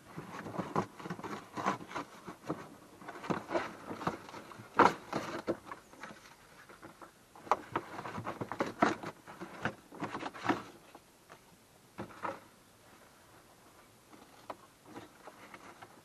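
Cardboard and gaffer tape being ripped off a parcel by hand: irregular spells of tearing and crackling. They stop about three-quarters of the way through.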